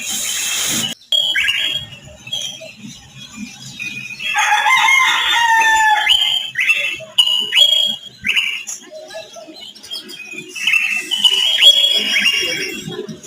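Birds calling outdoors: many short chirps, with a longer call lasting about two seconds starting around four seconds in and another burst of calls near the end. A short burst of noise comes right at the start.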